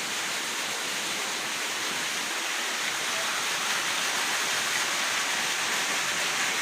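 Light monsoon rain still falling, with rainwater running off; a steady, even hiss.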